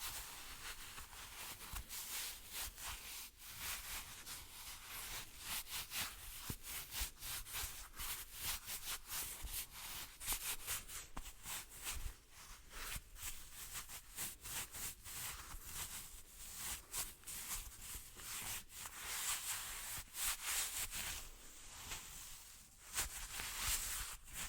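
Hands rubbing and brushing against each other close to the microphone: a fast, irregular run of soft swishes and brushing strokes with a hissy, high-pitched texture.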